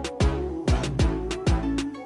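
Background music with a steady beat, a kick drum about twice a second under pitched instruments.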